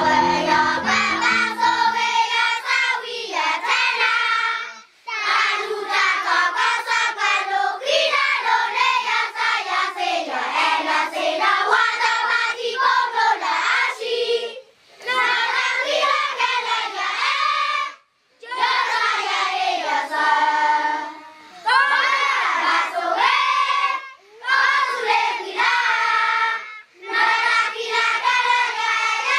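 A large group of children singing a song together, in sung phrases separated by short pauses for breath.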